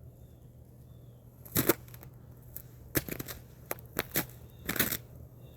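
Ice crust crunching and cracking underfoot: a string of sharp, irregularly spaced crunches beginning about a second and a half in.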